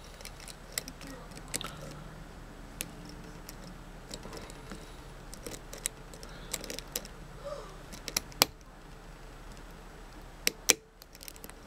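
Lock pick scraping and clicking against the pin tumblers of a 5-pin Schlage lock cylinder held under tension. Irregular small metallic clicks and ticks, a few sharper ones near the end, over a faint steady hum.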